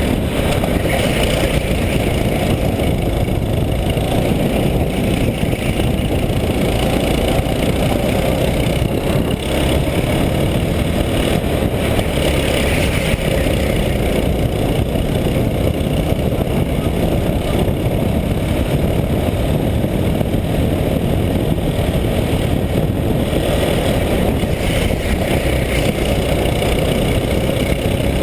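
Racing kart's engine running continuously at speed, heard loud and close from an onboard camera mounted on the kart, mixed with wind and road noise.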